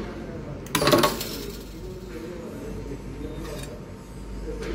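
Wire-terminal crimping machine and applicator taking a single stroke about a second in: one sharp metallic clack with a short ring as a terminal is crimped onto a wire.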